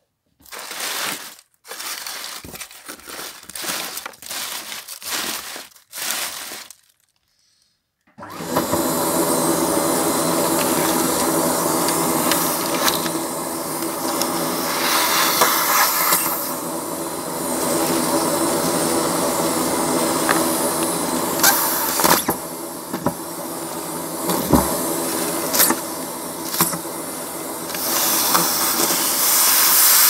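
Plastic wrappers and paper crinkling in short bursts, then after about eight seconds a vacuum cleaner comes on and runs steadily with a motor whine, rising and dipping in level as the nozzle works through dust and debris, with a few sharp clicks of bits being sucked up.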